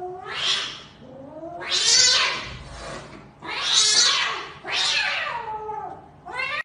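Cat caterwauling: about four long, harsh yowls with wavering pitch.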